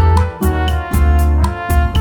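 Background music: an upbeat instrumental track with a steady beat and pulsing bass.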